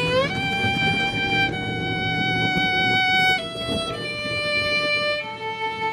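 Music: a lead instrument plays long held notes, sliding up into the first one and moving to a new pitch every second or two, over a low rumble.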